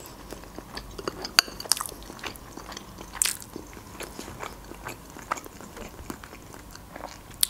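A forkful of cheese-topped casserole chewed close to the microphone, with wet mouth clicks and smacks scattered through.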